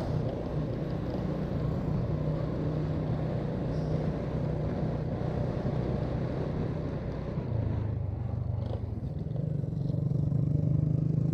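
Motorcycle engine running steadily while riding, with road and wind noise. About seven and a half seconds in, the engine note drops lower and quieter, then climbs back up about two seconds later.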